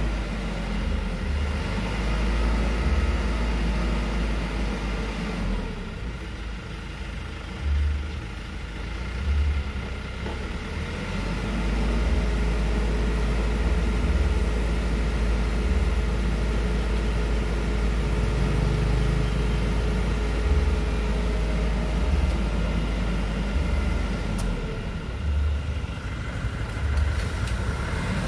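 Old truck engine running steadily with a heavy low rumble, easing off for a few seconds and picking up again about halfway.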